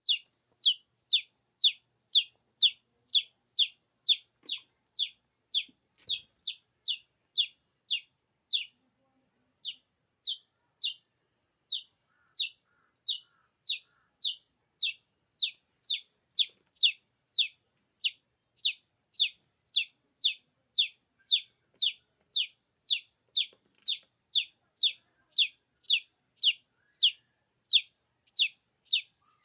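A chick's peeping call repeated steadily: high, falling peeps about two a second, with one short pause about nine seconds in. It is the call used to draw other chicks in.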